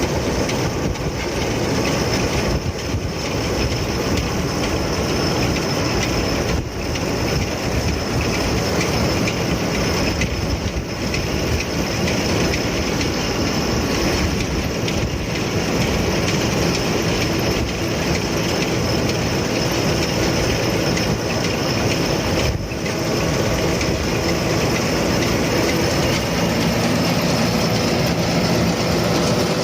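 Zetor Forterra 140 HSX tractor running steadily while driving a New Holland 648 round baler, a continuous mechanical clatter with a thin steady whine over it.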